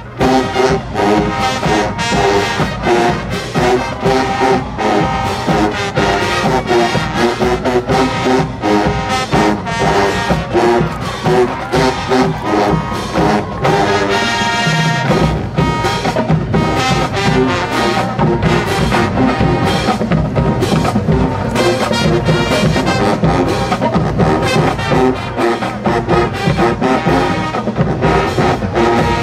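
Marching band playing live: a full brass section of sousaphones, trombones and trumpets over marching drums beating a steady rhythm.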